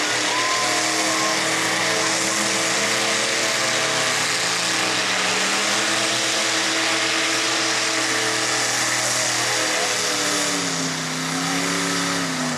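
A motor vehicle's engine running at high revs, its pitch held fairly steady, then dipping and climbing again near the end.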